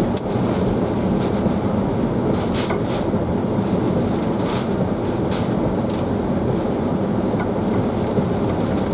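Hurricane-force wind rushing and buffeting around an SUV, heard from inside the cabin as a steady loud rumble, with scattered sharp hits on the body now and then.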